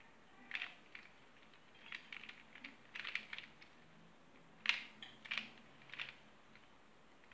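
A Square-1 puzzle being turned at speed: quick clusters of plastic clicks and clacks as its layers are twisted and sliced, the sharpest click about four and a half seconds in.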